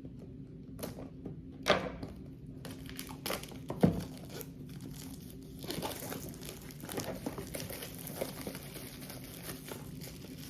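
Packaging being opened by hand: crinkling and tearing, with a sharp thump about four seconds in.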